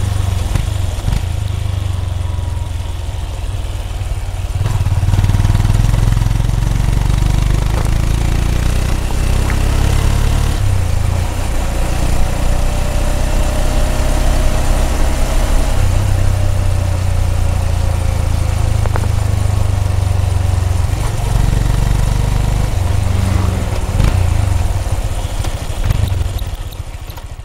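Honda CB200X single-cylinder motorcycle engine's exhaust note while riding, a low note that swells and eases several times as the throttle is opened and closed. It fades out near the end.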